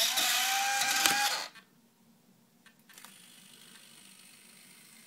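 Model jet's retractable nose landing gear and gear doors cycling shut: a loud mechanical whir with a steady whine for about a second and a half, stopping abruptly. From about three seconds in, a faint steady buzz remains from a servo that should be under no load, which the owner cannot yet explain.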